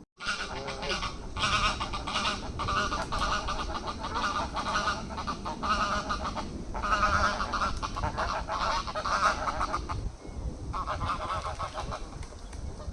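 Waterfowl calling: a long run of rapid, nasal honking calls, nearly continuous, with short pauses about halfway through and again towards the end.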